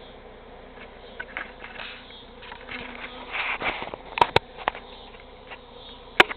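Large colony of honey bees buzzing steadily, the swarm swelling louder for a moment in the middle. Several sharp taps cut through: two close together about four seconds in, one just after, and a single loud one near the end.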